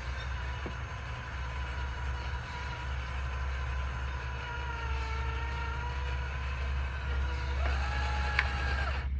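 Cordless drill motor running steadily with a whine that sags slightly in pitch, then cutting out abruptly near the end as the drill dies, its battery spent.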